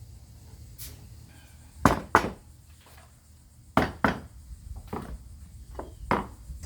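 A series of sharp knocks and clacks, several coming in quick pairs, as boards and tools are handled on a wooden workbench, over a faint low hum.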